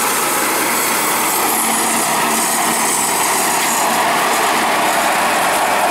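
Kubota B7500 HST compact tractor's 21-horsepower three-cylinder diesel running steadily as the tractor drives past close by, its 72-inch Bush Hog finishing mower cutting grass.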